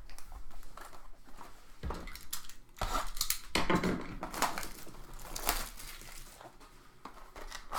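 Trading card packs and cards being handled: irregular rustling, crinkling and light clicks, with a few louder knocks about 2, 4 and 5.5 seconds in.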